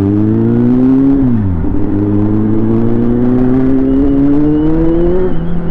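Kawasaki Z800's inline-four engine accelerating through the gears. Its pitch climbs, drops at an upshift about a second and a half in, then climbs steadily again and drops at another shift near the end.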